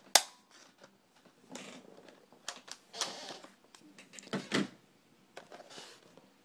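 A sharp plastic click just after the start, then scattered clicks, rubs and knocks: the battery of a Dell Inspiron 1440 laptop being unlatched and taken out and the laptop being handled.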